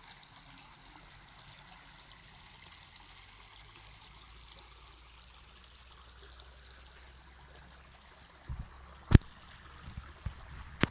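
Water flowing steadily in a natural stream, under a steady high-pitched insect tone. Near the end there are a few knocks, the loudest a single sharp click about nine seconds in.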